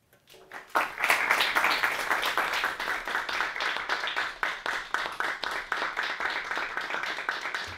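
Small audience applauding, with individual claps audible, starting about a second in.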